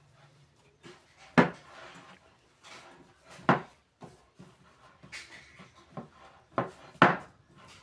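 Kitchen container and bowl being handled on a counter, with four sharp knocks, two of them close together near the end, and light rustling between.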